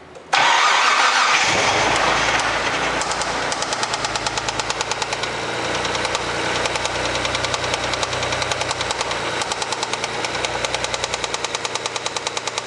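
Mitsubishi 3000GT's 3.0-litre V6 starting about a third of a second in and then idling, with a regular knock that becomes more distinct after a few seconds. The knock appeared after track laps at very high oil temperature; the owner fears a rod knock but has not yet diagnosed it.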